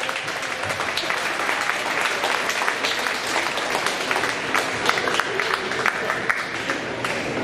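Audience applauding: a dense, even clatter of many hands clapping that dies down near the end.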